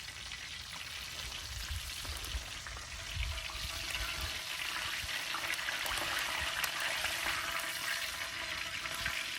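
Catfish frying in a skillet: a steady sizzle that grows louder about three seconds in.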